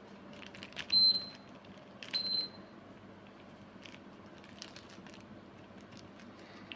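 Denpoo split air conditioner's indoor unit beeping twice, a short high beep about a second in and another about a second later: the unit acknowledging remote-control commands through its newly replaced PCB receiver. Faint clicks and a steady background hum around the beeps.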